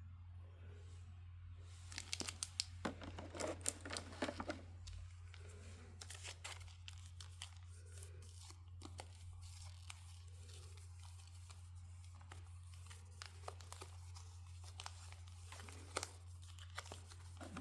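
Packaging from a Pokémon card Elite Trainer Box being torn open and crinkled: a dense burst of crackling about two seconds in, then scattered crinkles and clicks. A steady low hum runs underneath.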